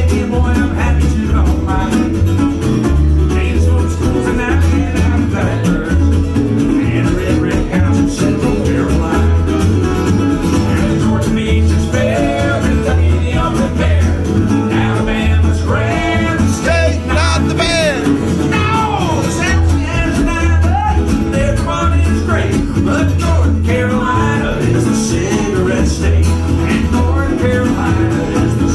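Live country-bluegrass band playing: strummed acoustic guitar and resonator guitar over a steady plucked upright bass line.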